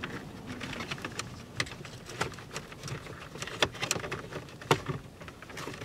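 Wiring and plastic connectors rustling and clicking as a hand tucks them into the dash cavity behind the car radio, with a handful of scattered sharp clicks.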